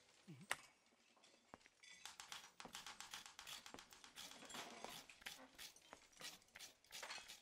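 Faint, irregular clicking and tapping, several a second, starting about two seconds in after a near-silent opening with one click.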